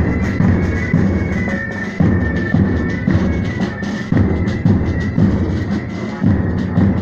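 Military band playing a march, with a heavy drum beat about every two seconds under a held melody.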